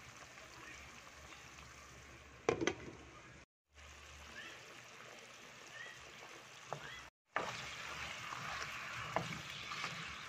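Chicken feet simmering in sauce in a wok: a steady bubbling hiss with small pops, louder in the last few seconds. A sharp knock comes about two and a half seconds in, and the sound cuts out briefly twice.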